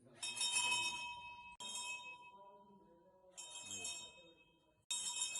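Temple bell struck four times, about every one and a half seconds, by an automatic motor-driven ringer. Each stroke rings with a bright, high shimmer over a steady mid tone and fades before the next.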